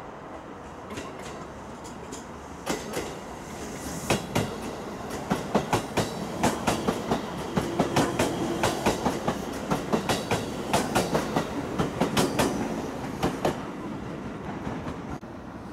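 JR West 223 series electric multiple unit passing close by, its wheels clicking over the rail joints in a long, regular run of clacks that builds up, peaks as the cars go by and fades away as the train leaves.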